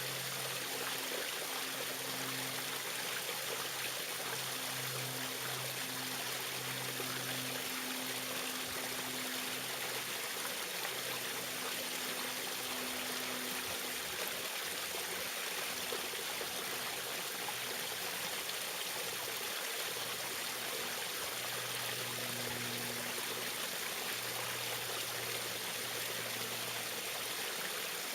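Small waterfall splashing and rushing steadily, with a faint low hum that comes and goes underneath.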